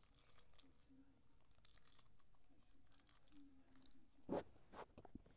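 Faint scratching and rustling handling noise, with two soft knocks about four seconds in, half a second apart.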